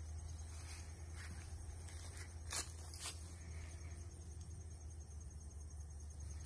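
Quiet outdoor ambience: a steady low rumble, a faint high insect trill, and two brief rustles about two and a half and three seconds in.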